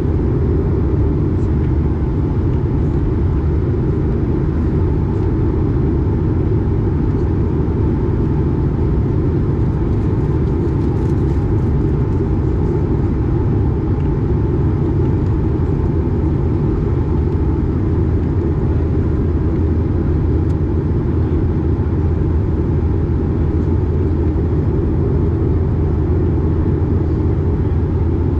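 Steady cabin noise of an Airbus A220 in flight, heard from inside near the wing. It is a low, even drone from its Pratt & Whitney PW1500G geared turbofan engines and the airflow, with a faint steady hum on top.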